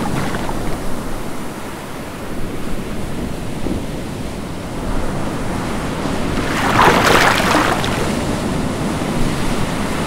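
Ocean waves washing steadily, with a louder rushing surge about seven seconds in.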